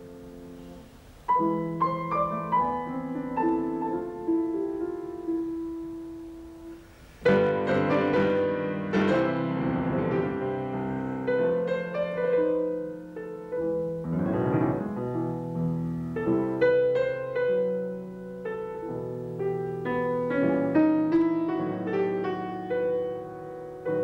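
Solo grand piano playing: a phrase enters about a second in and dies away, then a loud chord about seven seconds in opens a fuller, busier passage.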